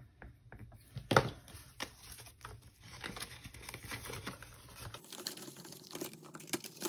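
Paper bills and cash envelopes being handled: crinkling and rustling, with scattered ticks and one sharp tap about a second in.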